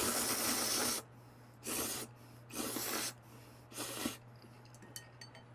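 A man slurping up a mouthful of spicy mixed instant noodles: one long slurp of about a second, then three shorter slurps about a second apart.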